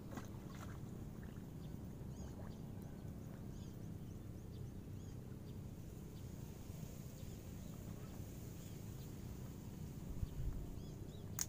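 Outdoor ambience: small birds chirping in short high calls, again and again, over a steady low rumble, with one sharp click near the end.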